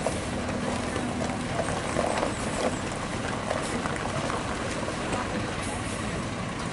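UD Quester tanker truck's diesel engine running steadily as the truck crawls slowly forward over a muddy dirt road.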